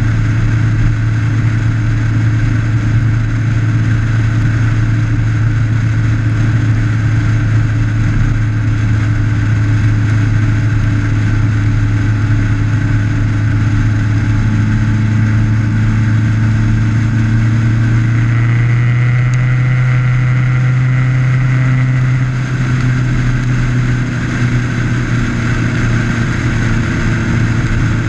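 Motorcycle engine running steadily at cruising speed, heard from a camera mounted on the bike, over a constant rush of wind and road noise. The engine note rises a little about two-thirds of the way through and drops back near the end.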